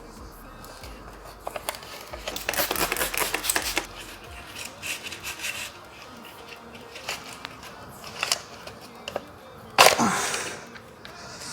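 Clicks and rattles of BMW X3 door-mirror housing parts being handled and fitted together during reassembly after a hinge replacement, with a busy run of small clicks early on and one loud sharp knock near the end.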